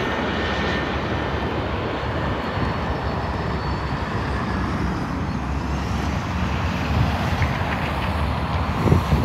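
Regional jet airliner's engines heard at a distance: a steady rumble with a faint whine that fades over the first few seconds. Wind buffets the microphone near the end.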